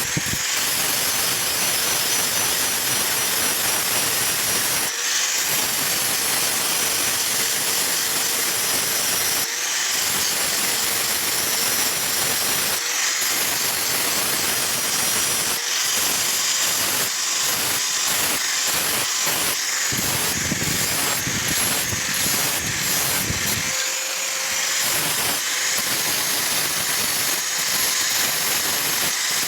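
Steady mechanical hiss with a faint whine from a motor-driven workshop machine, broken by many brief dropouts.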